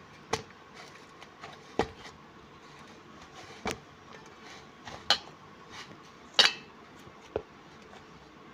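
Dough being pressed and kneaded by hand in a stainless steel plate, the plate giving six or so sharp knocks and clinks spaced a second or two apart, the loudest about six seconds in.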